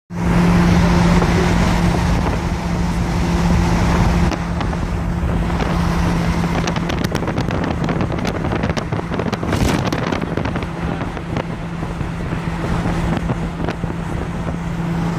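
Steady low engine drone with road and wind noise, heard from inside a moving vehicle on a highway. A few brief crackles come around the middle.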